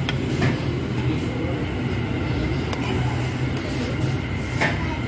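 Restaurant room noise: a steady low hum, with a few light clicks about half a second in, near three seconds and near the end.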